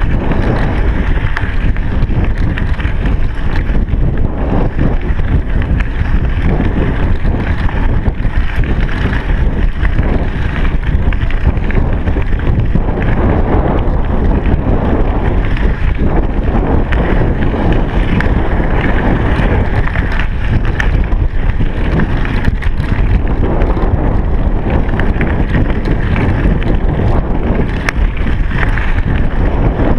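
Wind buffeting the microphone of a chest-mounted GoPro Hero3 as the bike rides along: a loud, steady rushing noise, heaviest in the low end, with no let-up.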